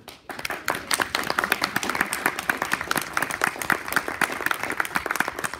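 Audience applauding: dense clapping that starts suddenly just after the start.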